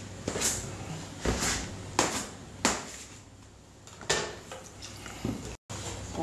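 Bread dough being cut and divided on a wet worktable: a series of sharp knocks and clatters, five or six of them, roughly a second apart, as the dough is chopped and the pieces handled.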